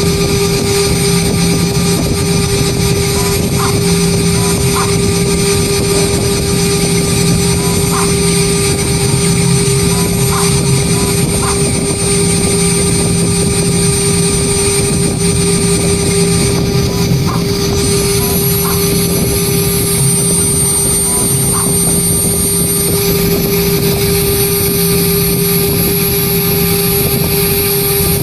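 CNC engraving machine's spindle running at steady speed while its bit cuts lettering into aluminium composite panel: a loud, constant whine with a high-pitched tone that shifts about two-thirds of the way through.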